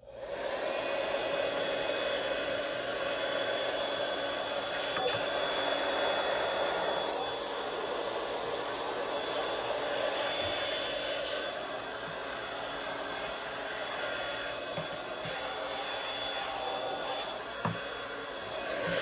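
Cordless handheld mini vacuum switching on and running steadily, a whirring motor whine with rushing air as its crevice nozzle sucks loose threads off a cutting mat. A couple of light knocks near the end.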